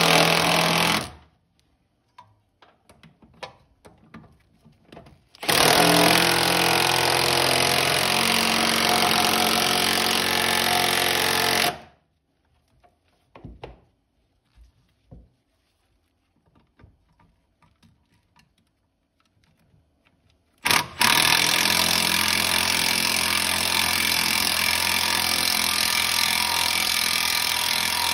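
Impact wrench driving the 14 mm bolts of a rear camber arm, run in three long bursts: a short one at the start, one of about six seconds, and one starting about two-thirds of the way in and running on, with small knocks of hand work between.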